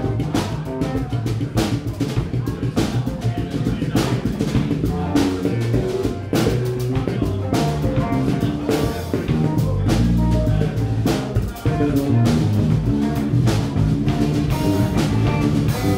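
Live band playing a funk groove: a drum kit keeps an even beat with rimshots, over electric bass and electric guitar.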